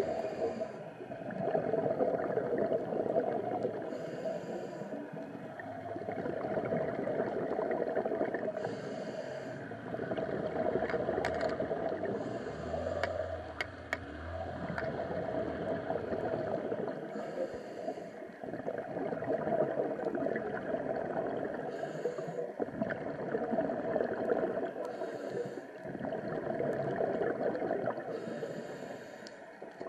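Diver breathing underwater through a regulator: a short rush of exhaled bubbles about every four seconds over a steady underwater hiss. A brief low hum comes in near the middle.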